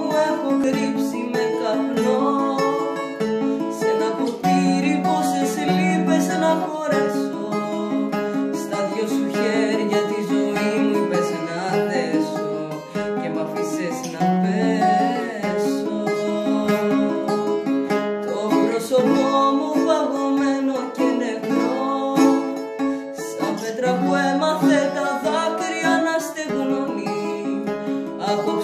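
A woman singing a Greek song to the accompaniment of a plucked, guitar-like string instrument.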